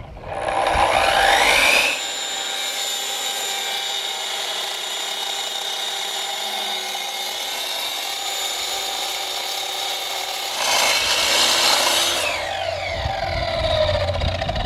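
Handheld electric saw spinning up with a rising whine and biting into limestone, then running steadily for several seconds. Near the end it cuts hard into the stone again for about a second and a half, then winds down with a falling whine.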